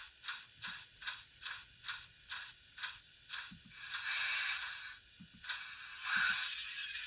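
Steam locomotive sound from a model's DCC sound decoder (Wheeltappers narrow-gauge steam file) through a small speaker: even exhaust chuffs about two a second, then a short burst of steam hiss, then a longer, louder hiss with a high steady tone near the end.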